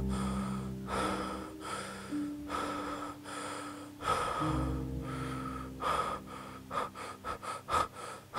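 A man sobbing in gasping, shaky breaths, slow at first and then coming quick and short near the end. Under it a low sustained music drone changes chord twice.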